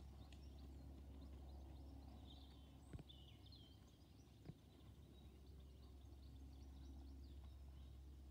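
Near silence: faint outdoor ambience with a steady low hum and small birds chirping in the distance, and two short sharp knocks about three and four and a half seconds in.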